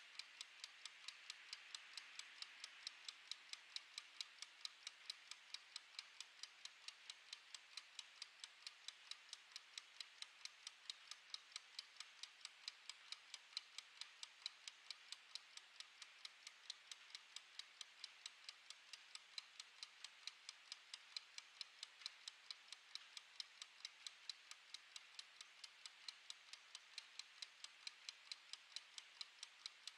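Clockwork escapement of a mechanical wind-up kitchen timer ticking as it counts down: faint, rapid, even ticks, about three a second.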